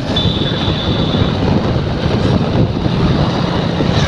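Motorcycle riding at road speed: wind rushing over the microphone, with the engine running steadily underneath.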